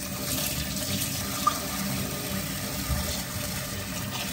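Kitchen tap running a steady stream of water into a plastic basin of glutinous rice, filling it to soak the rice.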